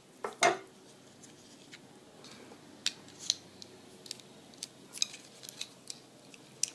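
Scattered small clicks and taps of a die-cast Majorette Renault Clio toy car being handled in the fingers while the tight rubber bands holding it in its packaging are worked off.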